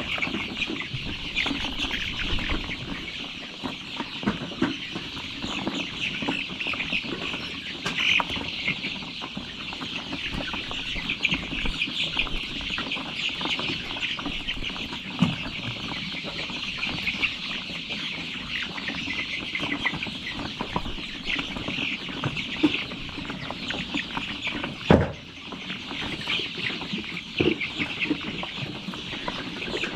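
A large flock of chickens clucking and cheeping nonstop while crowding around the feeders at feeding time. One sharp knock stands out about 25 seconds in.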